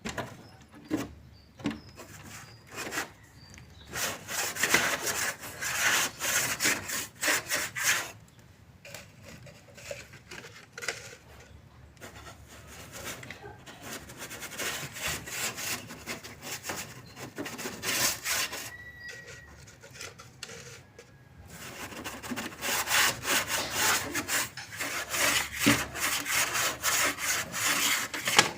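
Wood being sawn by hand in quick back-and-forth rasping strokes, in three bouts with short pauses between.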